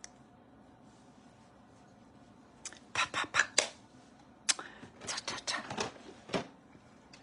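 Makeup items being rummaged through: after a quiet stretch, a string of sharp clicks and clatters from small hard cases and containers being picked up and set down for about four seconds.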